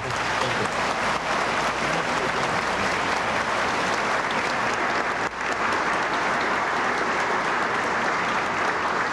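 Audience applauding steadily, a dense, even clapping.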